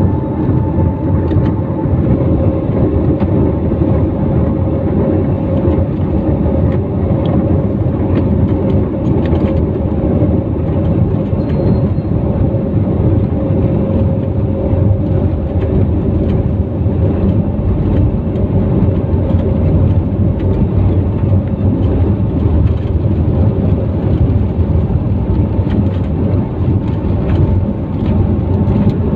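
Passenger jet's cabin noise on the take-off roll: the engines running at high thrust with a steady hum over a loud, deep rumble from the wheels on the runway.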